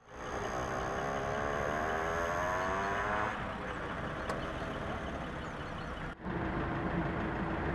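Road vehicle engine rising steadily in pitch as it speeds up for about three seconds, over a continuous traffic rumble. Near the end the sound drops out for a moment and returns as a steady engine hum.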